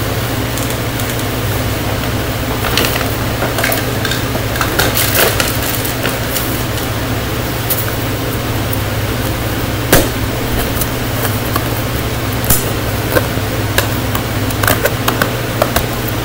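Hands turning and squeezing a small plastic-wrapped toy box, giving scattered crinkles and taps, with a sharper click about ten seconds in and a cluster near the end. A steady fan hum runs underneath.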